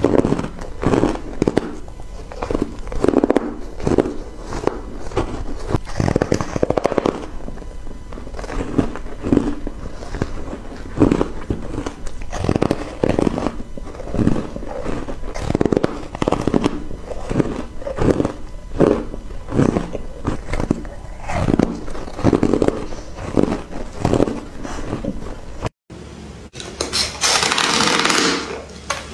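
Close-miked biting and chewing of frozen ice blocks dusted with matcha powder: a steady run of soft crunching chews, several a second. Near the end, after a brief break, a louder, hissier crunch of biting into another frozen ice bar.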